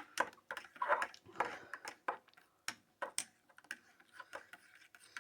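Spoon clinking and tapping against a mug as hot chocolate is stirred: a run of irregular light clicks.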